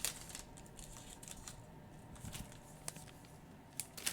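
Trading cards and a foil pack being handled: faint rustling with a few sharp clicks.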